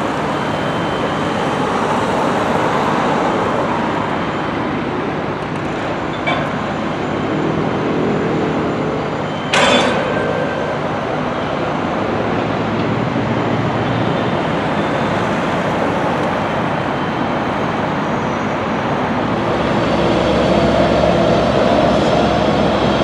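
Steady traffic and construction-machinery noise at a building site, with one sharp bang about nine and a half seconds in and a small knock a few seconds before it; the noise grows a little louder near the end.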